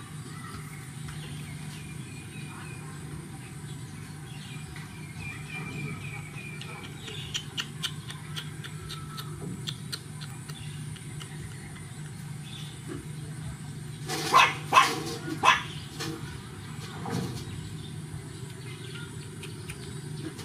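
A dog barking three times in quick succession, then once more, more faintly, a moment later, over a steady low hum.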